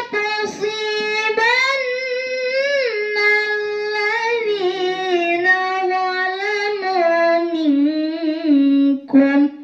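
A girl's voice reciting the Qur'an in melodic tilawah style, drawing out long notes with slow glides and ornaments. The pitch steps down over the phrase, and there is a short break near the end.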